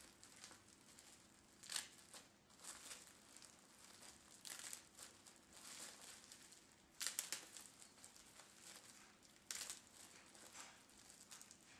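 Clear plastic wrap crinkling faintly in short bursts, several times over, as it is peeled away from nylon mesh and still-soft glue.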